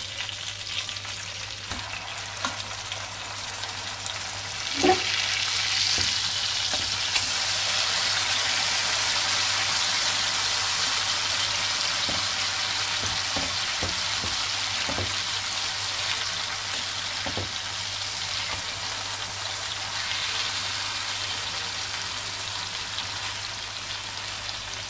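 Vanjaram (seer fish) steaks sizzling in shallow oil on a dosa griddle, the sizzle growing louder about five seconds in as the steaks are turned to their other side. A metal spatula knocks and scrapes against the griddle a few times, the sharpest knock about five seconds in.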